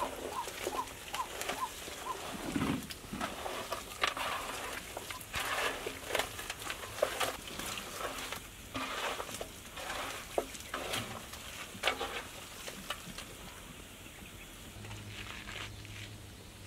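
Hands squishing and turning raw chicken pieces in a wet spice marinade with chopped coriander and mint, in a large metal pot: irregular wet squelching strokes.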